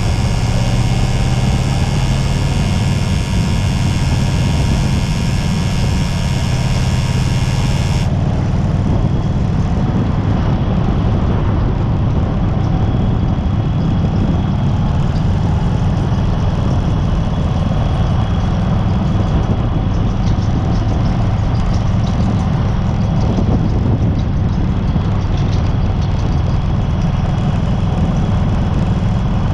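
1996 Harley-Davidson FLHTC Electra Glide's Evolution V-twin engine running steadily, recorded for an abnormal noise (異音) it is making.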